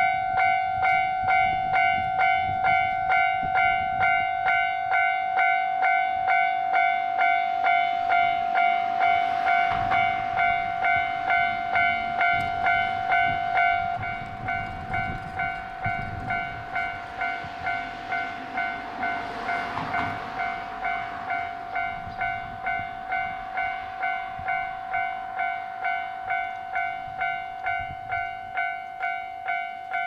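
Japanese railway level-crossing warning bell sounding its electronic 'kan-kan' dings in a fast, steady repeating rhythm. About halfway through it drops noticeably quieter and keeps ringing. A rushing noise swells and fades twice behind it.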